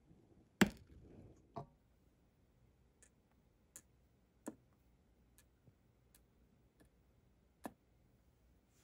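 Tiny metal rings being picked up and set down with tweezers on a work surface: a series of light, sharp clicks and ticks, the loudest about half a second in, then fainter ones every second or so.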